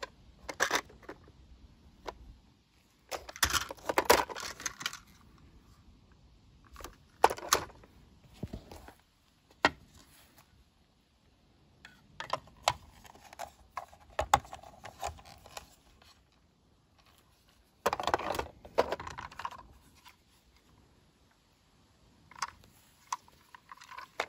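Toy cars and trucks knocking, clattering and scraping as they are picked up and set down on a wooden tabletop and dropped into a wicker basket, in short scattered bursts with quiet gaps between.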